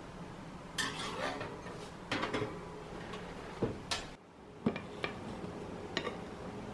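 Kitchenware being handled: a clatter about a second in and another around two seconds, then a few sharp knocks and single clinks of a stainless steel bowl against a glass bowl.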